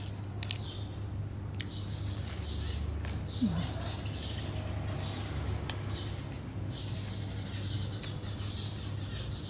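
Chewing and crunching of crisp raw vegetables, with leaves rustling and a few small clicks, over a steady low hum.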